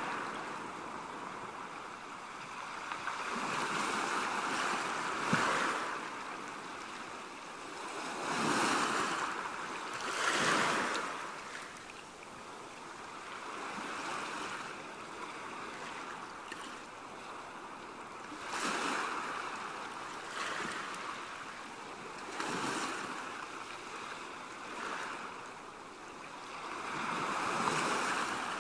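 Sea waves washing in, the rush of water swelling and falling back every two to four seconds.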